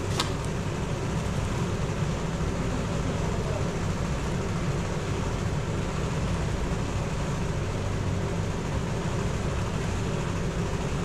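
Steady low background rumble, with one sharp click just after the start.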